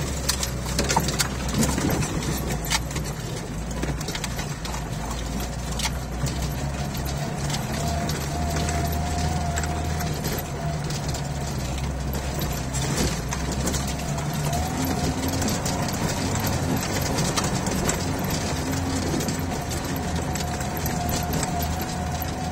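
Lada Niva driving slowly over a rutted dirt track, heard from inside the cabin: the engine's low steady drone with scattered knocks and rattles from the body over bumps. A thin whine comes in twice, about a third of the way in and near the end.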